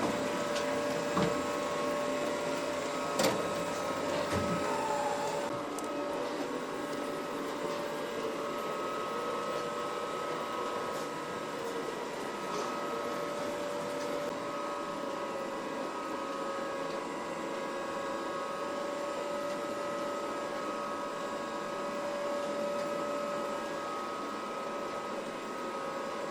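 Ecovacs Deebot M81 Pro robot vacuum running, a steady whine, with a couple of light clicks in the first few seconds.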